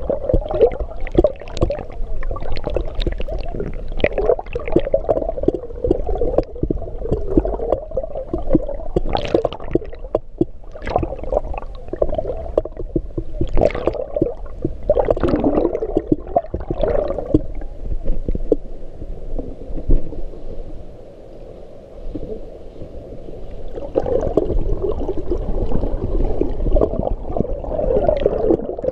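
Swimmer's front-crawl strokes and kicks churning pool water, heard from underwater as a muffled, continuous gurgling with frequent sharper splashes. It goes quieter for a few seconds about two-thirds of the way in, then picks up again.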